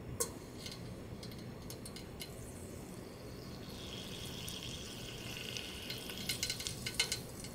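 Hot frying oil fizzing faintly around a wooden chopstick held in it, the small bubbles that show the oil is nearly hot enough for deep-frying. A steady hiss rises about four seconds in, and sharper crackles come near the end.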